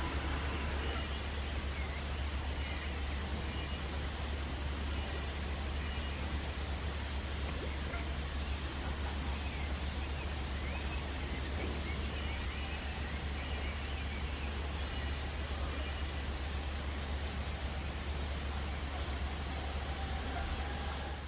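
Steady, unbroken high-pitched insect song over a low steady rumble of outdoor background noise, with faint short chirps here and there.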